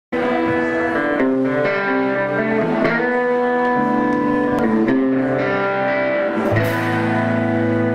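Electric guitar played live through an amplifier, a melodic line of held notes opening a rock song. About six and a half seconds in, a fuller chord with a low bass note comes in.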